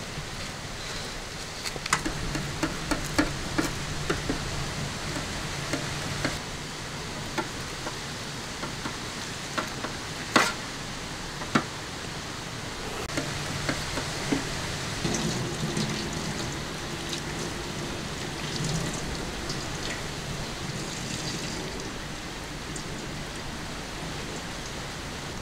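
Wet handling of a skinned leather jacket fish: scattered wet clicks and small splashes as it is cleaned and rinsed, over a steady hiss.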